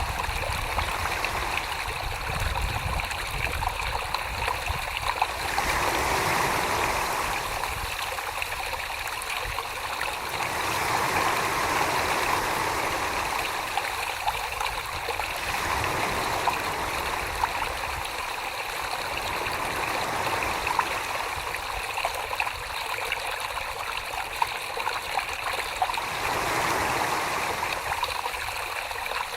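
Wet clay being thrown on a spinning potter's wheel: a continuous wet swishing of slip-covered hands on the clay over the wheel's low hum, swelling and easing about every five seconds.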